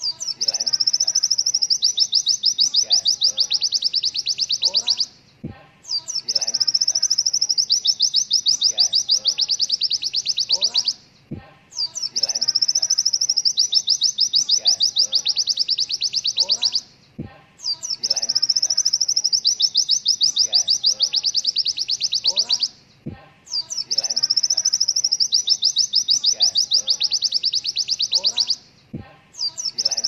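Pleci (white-eye) song: very rapid high-pitched trilling rattles in blocks of about five seconds, broken by short pauses roughly every six seconds in a near-identical repeating pattern, with fainter lower sliding notes underneath. This is the fast 'tembakan' rattle prized in pleci song.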